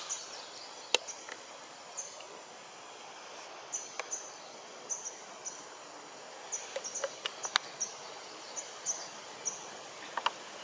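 Outdoor forest ambience: a steady hiss with short, high chirps repeating at irregular intervals and several sharp clicks, the loudest about a second in.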